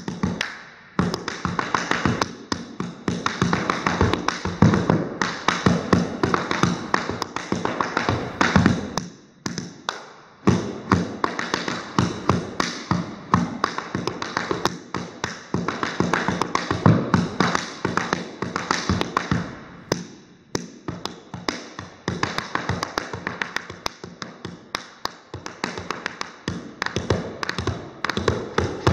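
Tap shoes on a hardwood floor: fast, improvised tap dancing, dense runs of metal taps striking, brushing and stamping, broken by a few brief pauses.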